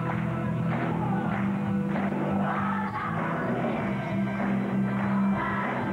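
A large children's choir singing with instrumental accompaniment, led by a conductor.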